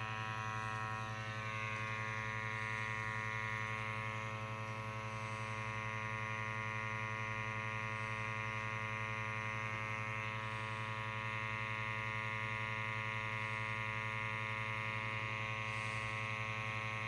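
Small sampling pump in a BW Technology GasAlert XT II gas monitor running with a steady electric buzz.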